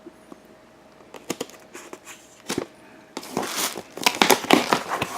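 Funko Pop box packaging being opened by hand: a few scattered taps and clicks, then from about three seconds in a denser, louder stretch of rustling and crackling.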